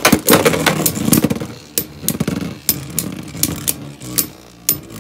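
Two Beyblade spinning tops whirring in a clear plastic stadium, clacking sharply against each other and the stadium wall, in a quick flurry at first and then about two hits a second.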